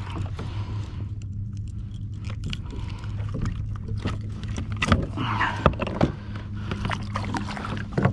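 Irregular knocks, clicks and scrapes from handling a small caught fish and tackle aboard a kayak, over a steady low hum.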